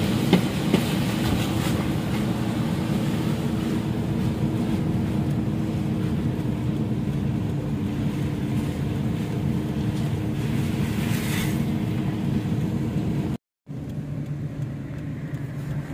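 Steady road and engine noise inside a moving car's cabin, with a steady low hum. It cuts out for an instant near the end and comes back a little quieter.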